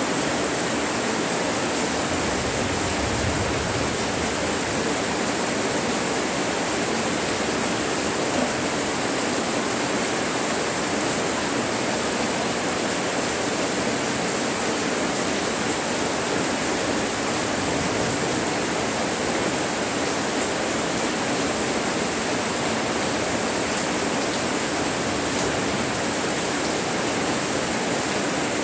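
Steady monsoon rain pouring down at night, an even hiss that does not let up.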